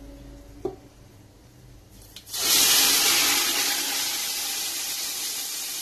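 Hot oil tadka with whole red chillies and cumin seeds poured from a frying pan into a pot of kadhi: a loud sizzle starts suddenly a little over two seconds in and slowly dies down. A light metal clink under a second in.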